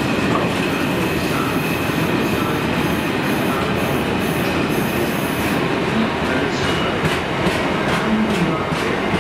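Freight train of bogie tank wagons rolling past: a steady rumble of wheels on rail, with a thin high squeal that fades about halfway. From about halfway on, a quick clickety-clack of wheels, about three clicks a second.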